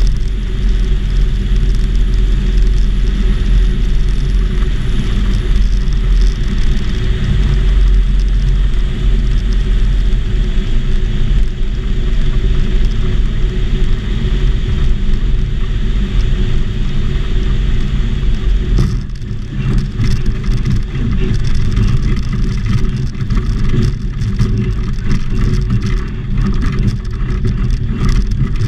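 Small aircraft engine and propeller of a homebuilt Volksplane VP-2, heard inside the cockpit during a landing approach on skis, running steadily. About two-thirds through the sound changes and turns rougher and uneven, with knocking and rattling, as the skis run on the snow.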